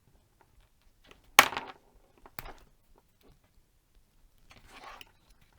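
Small handling noises of hands and tools working on a headphone cable's thin wires: one sharp click about a second and a half in, a smaller click about a second later, and a soft rustle near the end.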